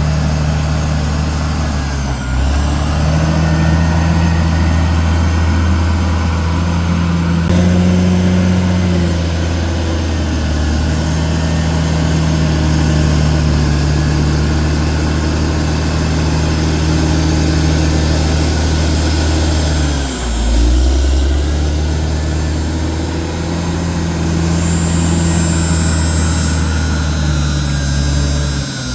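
Diesel engine of a CAT D6R XL bulldozer running steadily under load, its pitch dipping briefly about two seconds in and again about twenty seconds in as the load changes.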